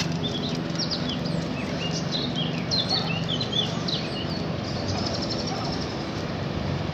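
Small birds chirping and twittering in quick short calls over the steady rush of water pouring over a river weir, with a low hum beneath; the chirps die away about three-quarters of the way through.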